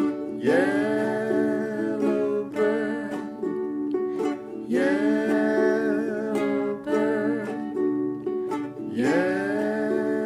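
Strummed ukulele playing steady chords, with three long wordless vocal notes that slide up into pitch and waver with vibrato, about every four seconds.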